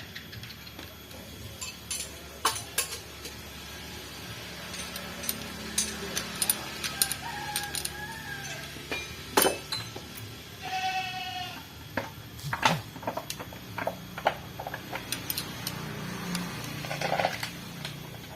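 Scattered metal clinks and knocks of hand tools on an engine during valve clearance adjustment, irregular and sharp, with the loudest knocks about nine and a half and thirteen seconds in. A brief high pitched sound is heard about eleven seconds in.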